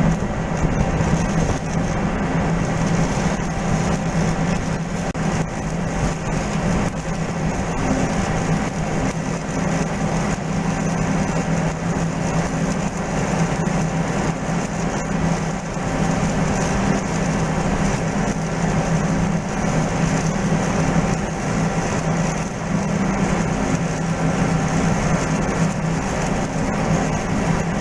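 Steady mechanical hum of running machinery, with a constant low drone and many small crackling clicks over it.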